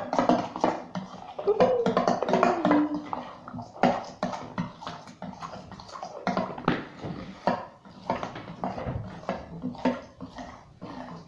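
A spoon stirring glue and bicarbonate of soda quickly in a bowl, with rapid, irregular clicks and scrapes of the spoon against the bowl.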